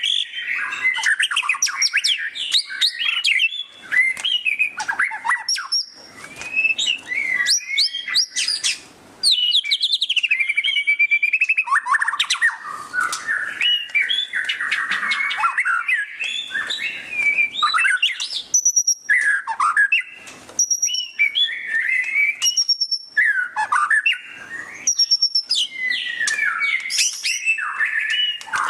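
White-rumped shama (murai batu) singing loudly in a rapid 'ngeriwik' style: fast chattering trills and swept notes mixed with clear high whistles, in phrases broken by brief pauses.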